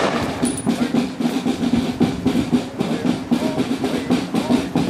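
Marching parade drums playing a cadence, with snare drum rolls, over a steady low drone.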